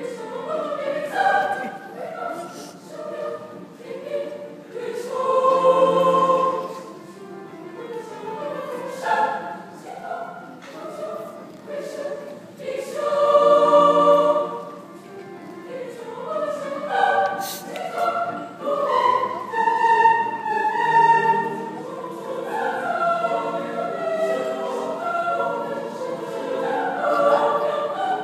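Mixed school choir of boys and girls singing in parts. The singing swells into loud held chords about six seconds in and again about fourteen seconds in.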